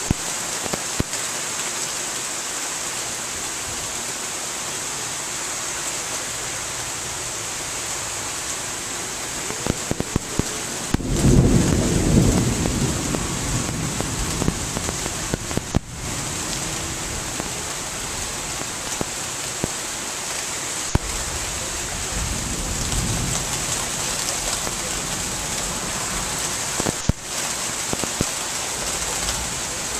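Steady rain hissing, with scattered small drip ticks. A loud rumble of thunder comes about a third of the way in and dies away over a few seconds, and a fainter rumble follows later.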